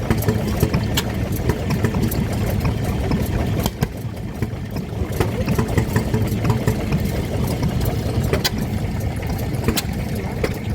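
Vintage stationary engines running: a steady low chug with scattered sharp clicks and knocks throughout.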